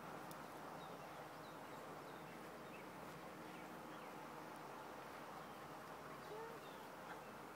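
Faint outdoor field ambience: a steady hiss with scattered small high chirps, and one short whine-like tone about six seconds in.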